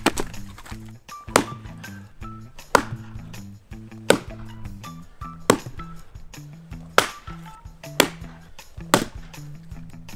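A small axe splitting firewood rounds on a chopping block, about eight sharp blows roughly one every second or so, over background music.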